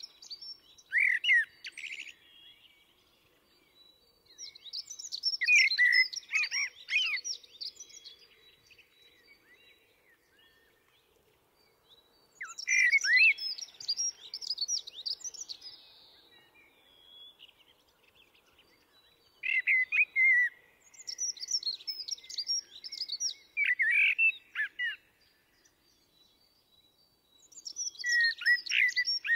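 Eurasian blackbird singing at night: separate phrases of fluting whistles and higher twittering, each a few seconds long, with pauses of a few seconds between them.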